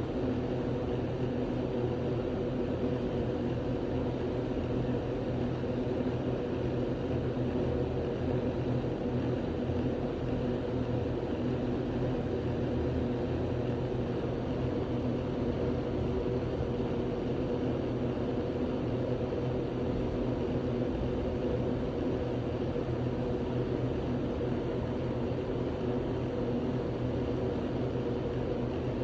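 A steady, unbroken mechanical drone with a low hum, unchanging throughout, with no distinct individual sounds standing out.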